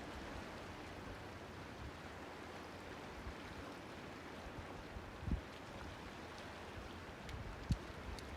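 Sea water washing and lapping at a small harbour: a steady hiss of water. Two brief low thumps about five seconds in and near the end, the second louder.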